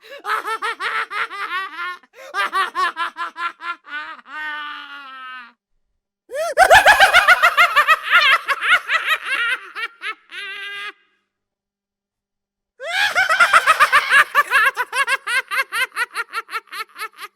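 Creepy clown laugh sound effect: a high-pitched, maniacal voice laughing in quick ha-ha syllables. It comes in several takes separated by short pauses, and the loudest takes break out about six and thirteen seconds in.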